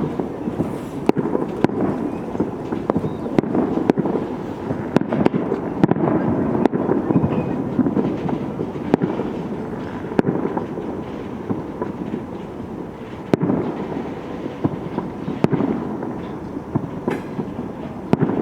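Fireworks banging at irregular intervals over the steady rumble of a train rolling on the rails, its wheels squealing in a faint thin tone.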